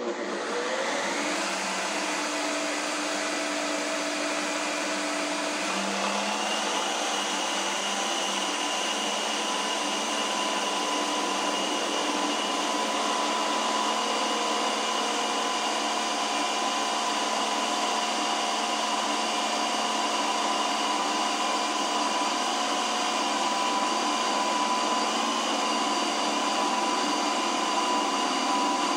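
Ninja Creami ice cream maker running its ice cream program: the motor starts with a rising whine, then settles after a few seconds into a steady whine as the blade works through the frozen pint.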